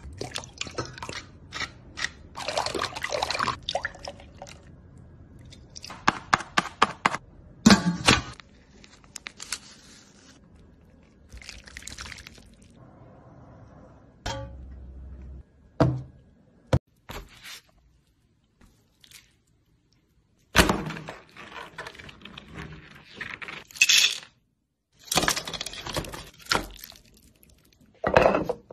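Kitchen handling sounds: liquid poured into a steel bowl of beaten egg, then a string of separate knocks, taps and clatter of dishes and utensils with short pauses between them.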